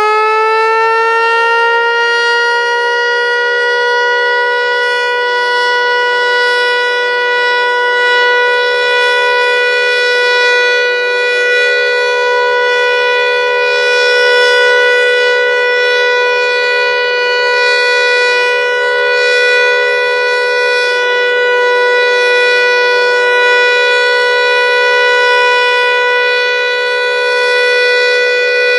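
Federal Signal Eclipse 8 outdoor warning siren sounding its steady alert tone. It finishes winding up to full pitch in the first second or two, then holds a steady chord-like wail whose loudness swells and fades slightly as it rotates. An odd buzzing comes from the siren throughout the test, of unknown cause.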